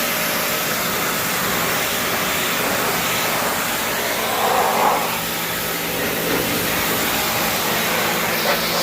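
Pressure washer running steadily, its motor humming under the hiss of the water jet spraying the air-conditioner's evaporator coil.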